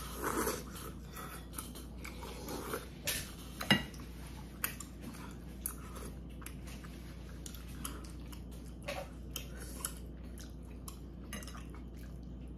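Close-up eating sounds: a person chewing a mouthful of dumpling and rice cake soup, with short wet mouth noises and scattered clicks of chopsticks and a spoon against the bowl. A sharp click a little under four seconds in is the loudest sound.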